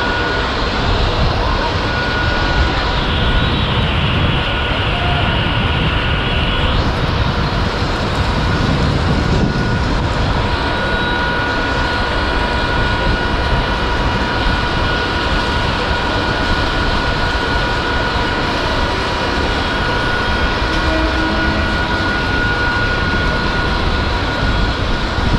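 Mumbai suburban electric local train running past along the platform: a steady rumble of the moving coaches, with a steady high whine over it.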